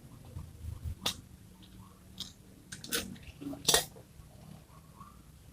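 Small handling noises from sewing by hand: fabric, pins and a safety pin being worked with the fingers, giving about four short scattered clicks, the loudest near the end.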